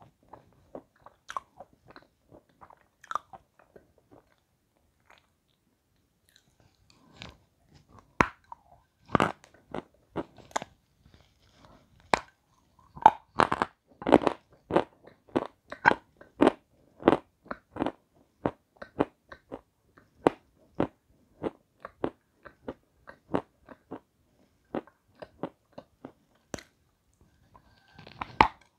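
Crunching and chewing of brittle, snow-white food, bitten and chewed right by a clip-on microphone. The crunches are sparse and quiet at first. From about a third of the way in they become loud and steady, about two a second, then thin out near the end.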